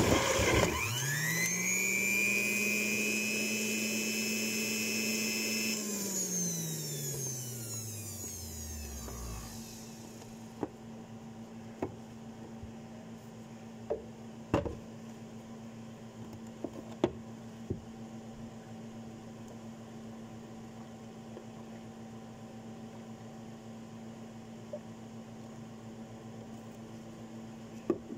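Electric juicer motor spinning up to a steady high whine, running for a few seconds, then switched off and winding down in pitch over about three seconds. After that there is a faint steady hum with a few light clicks and knocks.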